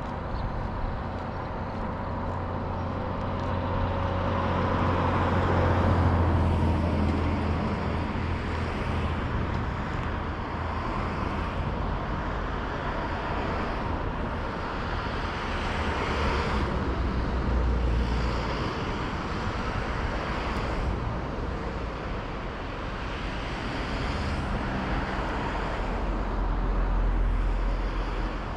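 Road traffic: vehicles passing one after another, the noise swelling and fading as each goes by, over a low engine hum.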